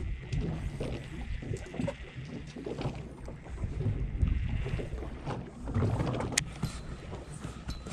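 Uneven low rumble of wind on the microphone and water moving around a drifting boat's hull, with a faint steady high whine that fades out about five seconds in and a single sharp click a little after six seconds.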